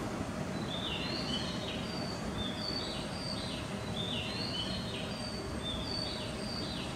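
Bird-like chirping: short high phrases of stepped notes, repeated about every one to two seconds, over a steady hum of station and train background noise.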